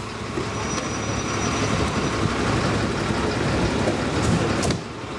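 Diesel engine of a MAN turntable ladder fire truck running steadily, with a short drop in level near the end.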